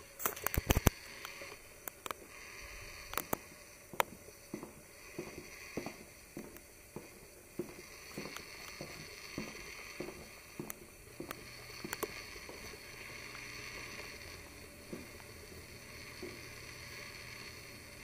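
Faint handling noise from a handheld camera carried through a house: a cluster of sharp clicks near the start, then soft footsteps at about two a second, over a steady hiss.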